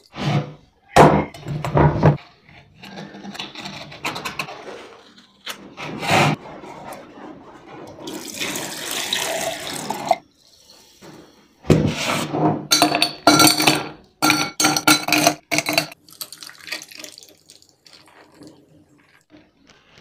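A run of kitchen handling sounds for a coconut drink. A glass bowl is knocked and set down, and coconut water splashes and runs in it. Sugar is poured into a steel mixer-grinder jar, followed by a run of short, clattering bursts that carry a steady ringing pitch.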